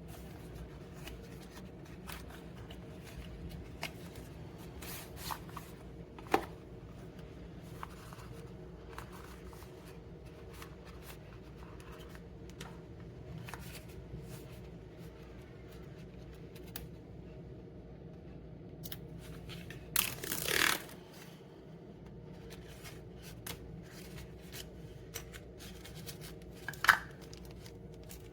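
Product packaging being handled and opened by hand: scattered light rustles and clicks, a sharp click about six seconds in and again near the end, and a tearing rip lasting about a second some twenty seconds in.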